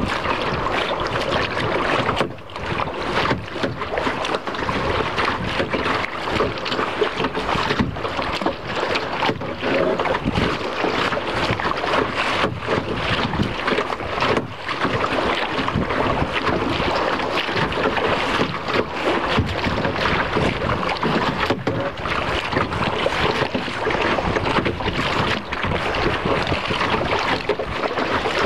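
Wind buffeting the microphone, mixed with choppy lake water splashing against a kayak's hull.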